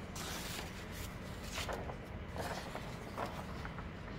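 Paper sliding and rustling on a tabletop as a printed sheet is laid over watercolor paper, in a few soft rustles.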